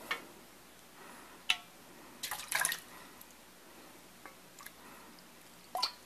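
Water poured from a plastic measuring cup into an aluminium pot: a few short splashes and drips, the loudest about two and a half seconds in, with light knocks of the cup in between.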